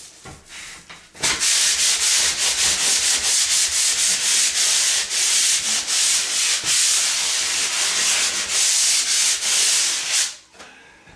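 Sanding a drywall ceiling in quick back-and-forth strokes, knocking down loose joint compound and rough edges where the old tape was torn out. It starts about a second in and stops shortly before the end.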